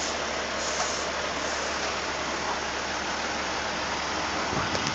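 Heavy truck engine idling steadily, with a few faint clinks near the end.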